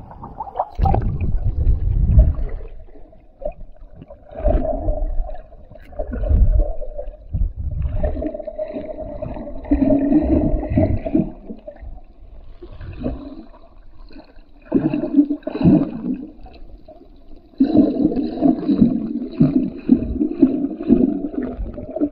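Water sloshing and gurgling picked up by a camera dipped at the surface and then held underwater, heard muffled, in uneven surges with low rumbling thumps.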